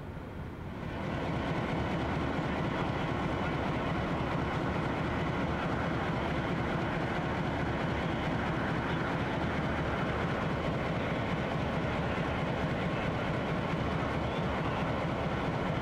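A line of diesel locomotives idling: a steady, even engine rumble with a faint whine, which gets louder about a second in and then holds steady.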